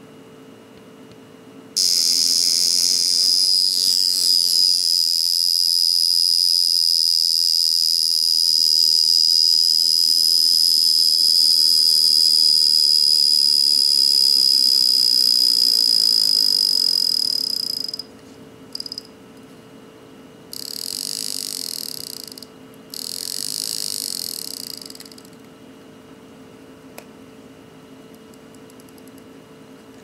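Vintage Sekonda alarm wristwatch's alarm going off, showing it works: a loud, high-pitched buzz that starts suddenly about two seconds in and runs for about sixteen seconds before stopping. A few seconds later it gives two shorter, quieter buzzes.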